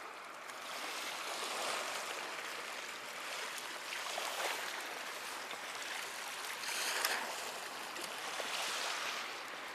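Small sea waves washing and lapping against the rocks, a steady rushing hiss that swells a little about seven seconds in.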